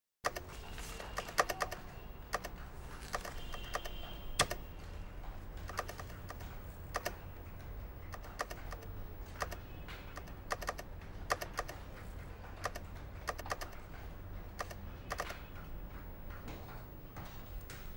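Keys of a Catiga desktop calculator being tapped in irregular runs of sharp clicks, over a low steady hum.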